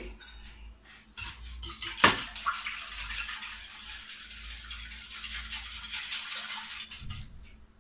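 Egg mixture being beaten briskly in a metal bowl, the utensil clicking rapidly and evenly against the bowl's side, with one louder clink about two seconds in.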